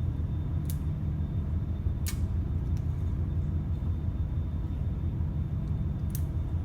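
Wind buffeting the microphone: a steady low rumble, broken by a few sharp clicks.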